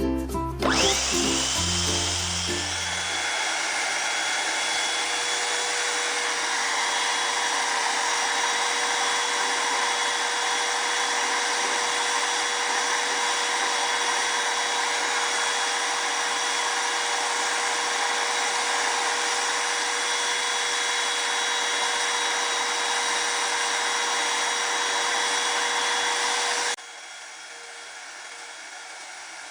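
Handheld electric paint spray gun running steadily: a motor whine over a hiss, spinning up about a second in after a brief snatch of music. Near the end it drops suddenly to a quieter steady hum.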